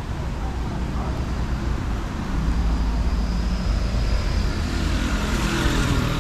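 City street traffic with a motor vehicle's engine running close by, getting louder a couple of seconds in, with a brief hiss near the end.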